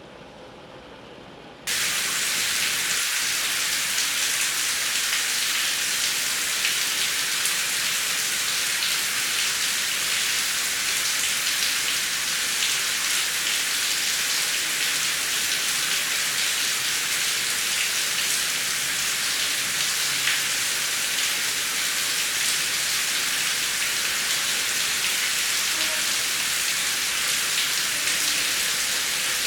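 Heavy rain falling as a steady, even hiss, cutting in abruptly about two seconds in after a much quieter low rumble.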